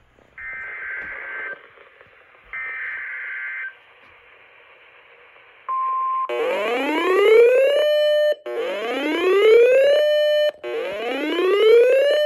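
Two short bursts of EAS SAME digital data tones, the end-of-message code after a weather warning. A brief beep follows, then a loud electronic whooping alert tone that rises in pitch and holds, repeating about every two seconds.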